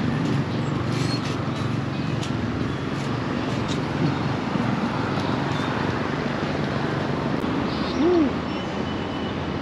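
Town street traffic: a steady hum of cars and buses moving past, with a few faint ticks. About eight seconds in there is one short tone that rises and falls in pitch.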